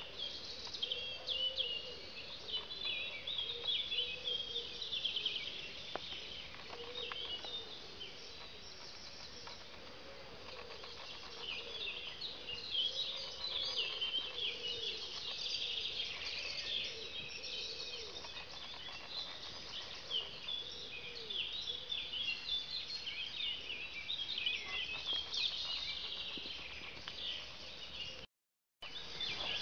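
Many small birds chirping and twittering without a break, with a lower, fainter warble beneath. The sound cuts out for about half a second near the end.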